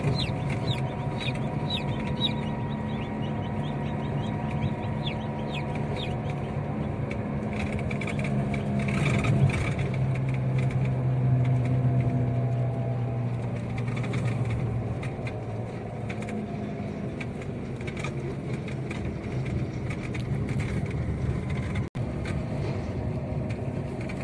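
Ross 308 broiler chicks cheeping, many short falling peeps, densest near the start, inside a moving car's cabin. The car's engine and road noise drone underneath, its note shifting about halfway through.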